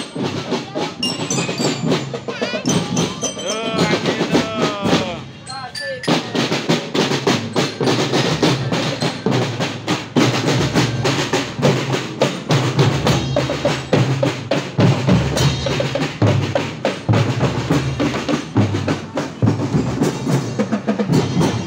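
Marching drum band playing: snare drums rolling and bass drums beating a steady rhythm, which fills out after about six seconds.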